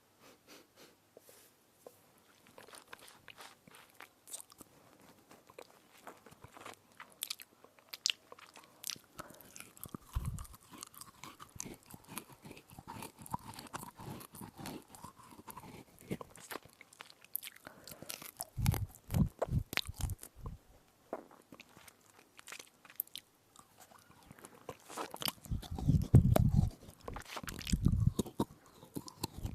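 Teeth biting and chewing an edible spoon: many sharp, crackly crunches, with heavier bouts of crunching about two-thirds of the way through and again near the end.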